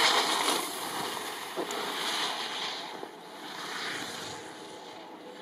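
Ski edges scraping on hard-packed snow as a slalom skier carves past close by, loudest at first, then swelling with each turn and fading as the skier moves away.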